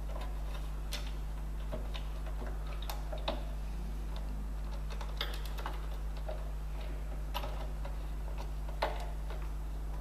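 Irregular light clicks and taps of small metal fasteners and tools being handled while fitting a spacer and screw, over a steady low hum.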